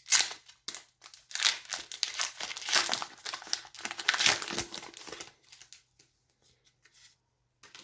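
Foil Pokémon booster pack wrapper crinkling and tearing open, a dense crackle for about five seconds, then a few faint ticks as it is handled.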